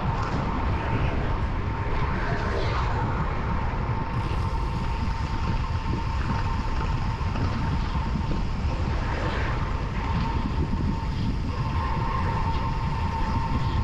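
Wind buffeting a GoPro microphone on a road bike descending at speed, a dense steady rush with road rumble underneath. A thin steady whine runs through it and grows stronger near the end.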